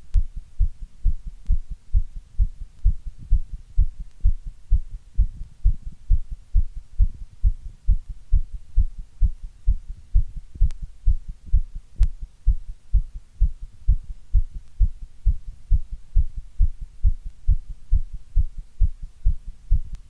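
Heartbeat: low lub-dub double beats repeating in a steady, even rhythm.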